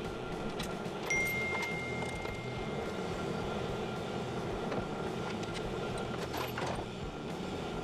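Steady low hum with a few light clicks from hand tools and a wire crimper being handled, and a thin high tone lasting over a second about a second in.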